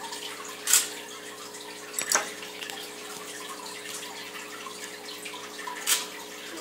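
Amber bead necklaces splashing and dripping as they are dipped into a bowl of salt water: three short splashes, about a second in, at two seconds and near the end, over a faint steady hum.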